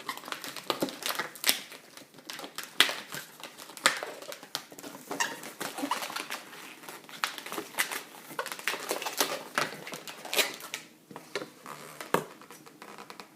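Latex modelling balloons rubbing and squeaking against each other as they are twisted and worked by hand: a string of short, irregular squeaks and crinkles.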